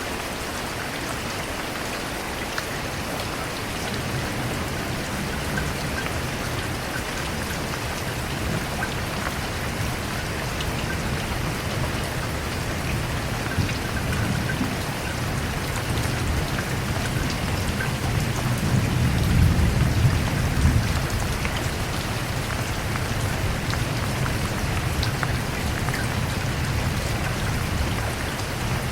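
Steady rain pattering on a surface, with a low rumble of distant thunder that builds, is loudest about two-thirds of the way through, then eases off.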